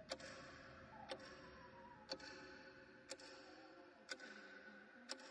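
A clock ticking steadily, about one tick a second, over a faint sustained drone.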